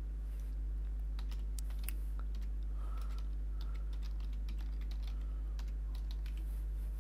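Typing on a computer keyboard: a quick, irregular run of key clicks starting about a second in, over a steady low hum.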